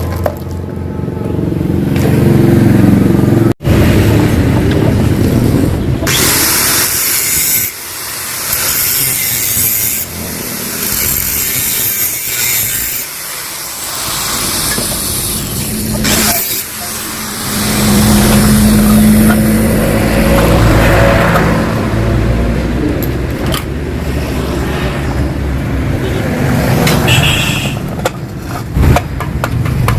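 Yamaha RX-King's two-stroke single-cylinder engine running through its reworked exhaust, loud, with the revs surging up and falling back several times.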